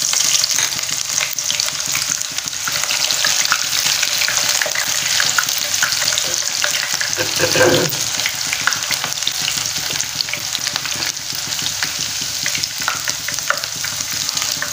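Sliced onion frying in a kadhai of hot oil: a steady, loud sizzle full of crackles that eases a little toward the end. From about halfway a wooden spatula stirs through it.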